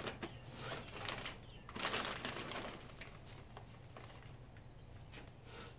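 Snack bag crinkling and rustling as a hand reaches in among the kettle corn. The rustles are loudest and come in several bursts in the first two seconds, then quieten.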